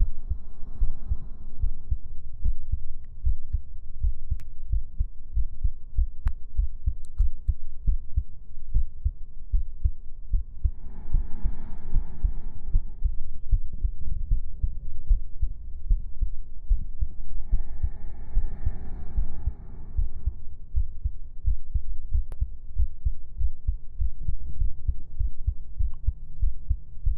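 A human heartbeat picked up by a microphone or stethoscope pressed to the chest: a steady run of low, even beats, with two stretches of fainter muffled sound over it partway through.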